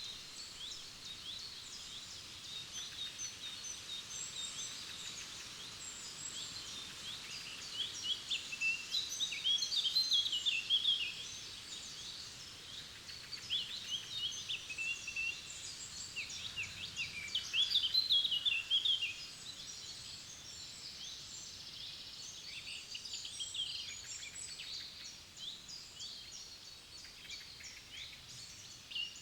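Several songbirds singing at once, a dense mix of overlapping chirps and trills, with louder song phrases about eight seconds in and again around sixteen seconds.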